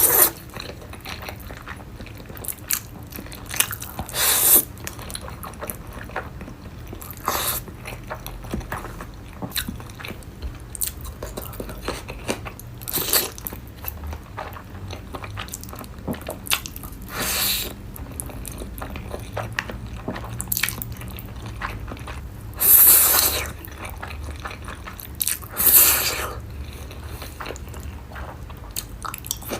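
Close-miked eating of spicy instant noodles: chewing and biting sounds, with about half a dozen louder, longer noisy bursts spread through.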